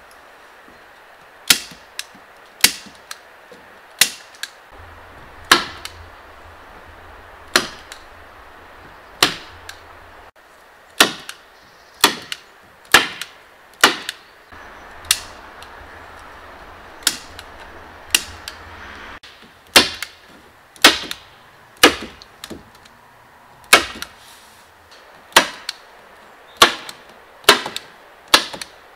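Hammer driving nails into a wooden cabin roof: a long series of sharp single blows, about one a second at an uneven pace, each with a brief ring.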